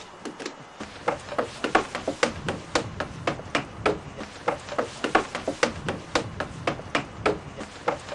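Footsteps climbing wooden stairs: a steady series of knocks on the wooden treads, about two or three a second, starting about a second in.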